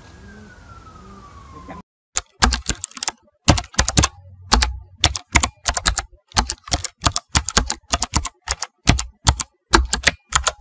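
Rapid, irregular typing clicks, like keys on a keyboard or typewriter, starting about two seconds in and running as a loud sound effect. Before them a faint distant siren slowly rises and falls, with pigeons cooing low.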